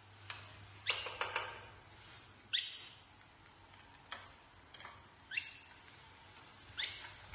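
Baby macaques giving short, high, squeaky calls, about four in all, each sweeping quickly in pitch, with a few light clicks of a metal spatula on the frying pan between them.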